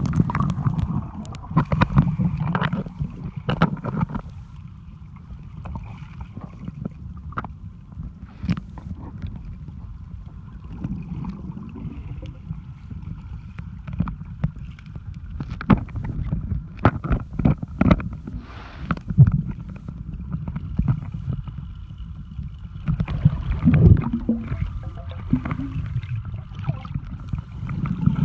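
Muffled underwater sound in a swimming pool, picked up by a submerged camera: a low rumble with scattered clicks and knocks from movement in the water.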